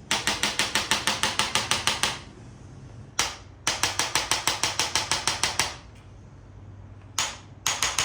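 Chiropractic adjustment gun firing rapid mechanical clicks, about nine a second, in runs of about two seconds with short pauses between, a single click just before each run; the last run starts near the end. It is delivering focused impulses to the lower spine.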